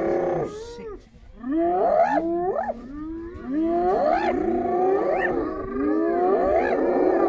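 A pack of spotted hyenas calling together: many overlapping calls that sweep up steeply in pitch and fall away, repeated over and over, with a short lull about a second in.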